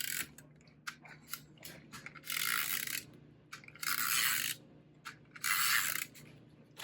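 Tape runner drawn across card stock in three rasping strokes, each about half a second long, with small clicks between them as it lays down adhesive.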